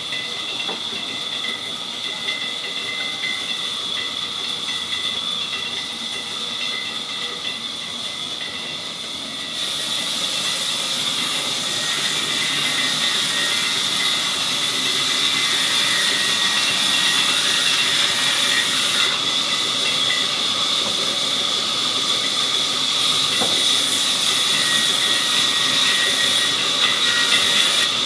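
Sawmill saw cutting through wood: a steady hissing rasp with a high whine. It gets louder in sudden steps about a third and two thirds of the way through.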